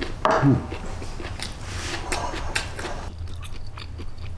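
Close-up chewing and biting of a mouthful of stir-fried pork kidney with vegetables, wet and crackly, stopping about three seconds in. A short falling hum is heard about half a second in.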